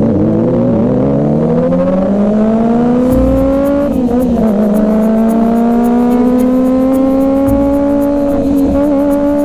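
Kawasaki ZX-25R's 249 cc inline-four engine accelerating hard. Its pitch climbs quickly, dips briefly at an upshift about four seconds in, then rises again more slowly in the next gear.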